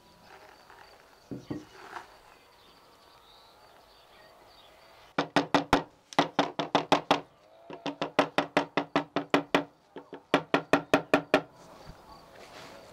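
A cooked beef marrow bone is knocked repeatedly against a wooden serving board to shake the marrow out. The knocks come in four quick runs of about six a second, with short pauses between them.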